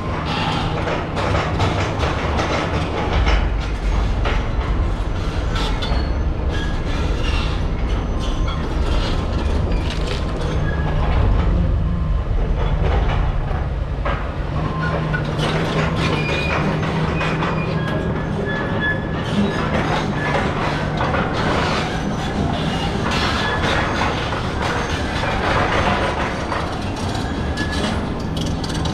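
Heavy diesel machinery running steadily under load, with a continuous low engine drone, repeated metallic clanking and occasional brief high squeals of metal on metal.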